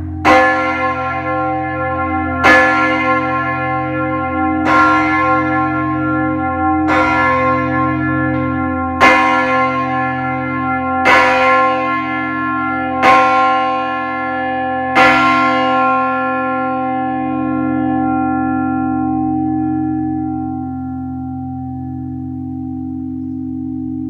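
Large Taylor-cast church bell, the Abbey's great bell Hosanna, struck eight times about two seconds apart, each stroke ringing on over a deep hum. After the last stroke it is left humming, the low tones dying away slowly.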